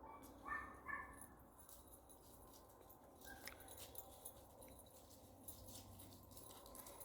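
A dog gives two short, high-pitched whines about half a second and a second in, with a fainter one later; otherwise near silence.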